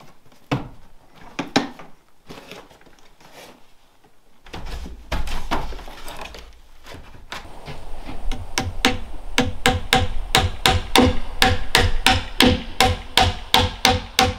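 Hammer driving nails into wood: a few scattered knocks at first, then from about eight seconds in a steady run of quick blows, about three a second, each with a short ringing ping, as pieces are tacked in place with nails.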